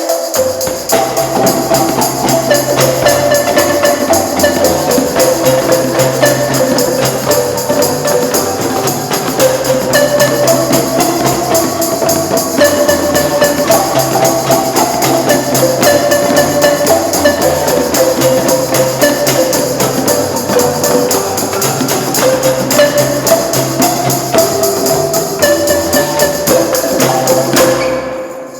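Marimba ensemble playing: repeating, interlocking melodic figures over low bass-marimba notes, with steady jingling percussion on top. The music drops away briefly near the end.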